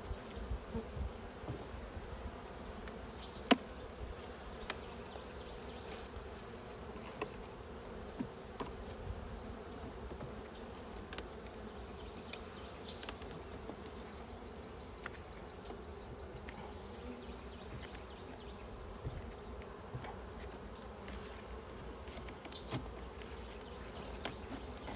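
Honey bees buzzing in a steady hum from an opened hive colony during an inspection, with a few scattered sharp clicks, the loudest about three and a half seconds in.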